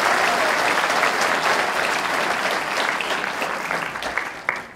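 Large audience applauding in a hall. The clapping thins out near the end, with a few last separate claps as it dies away.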